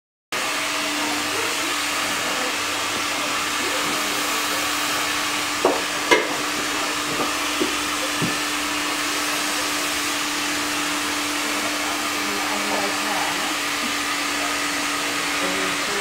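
Hair dryer blowing steadily, its hum cutting out just before the end, with a couple of light clicks about six seconds in.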